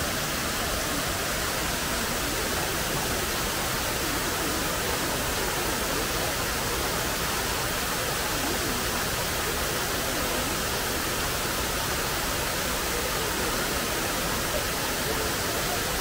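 Waterfall: the steady rush of many thin streams of water falling as a wide, low curtain over a rock face, a constant hiss with no breaks.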